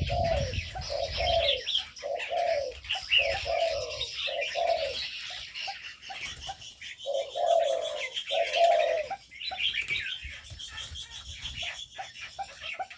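Spotted doves cooing in repeated low notes, with small birds chirping at a higher pitch throughout. The cooing is steady in the first couple of seconds, thins out, then comes back strongly around the middle.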